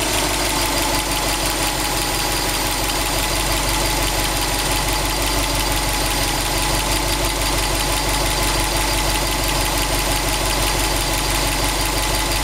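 Subaru Impreza WRX STi's turbocharged flat-four idling steadily when warm, with a rhythmic knocking: the knock the owner is chasing on a freshly replaced short block.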